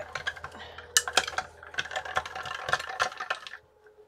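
Small hand-cranked die-cutting machine being cranked, its handle and rollers giving a rapid clicking clatter that stops shortly before the end. The machine is straining on a die sandwich that turns out to be too big for it.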